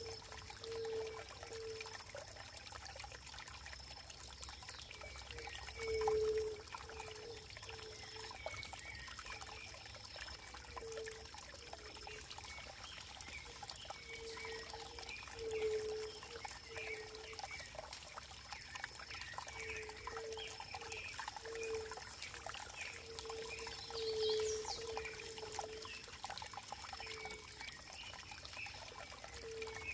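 Running water trickling and pouring steadily, with short low gurgling notes recurring irregularly, often in pairs or small groups.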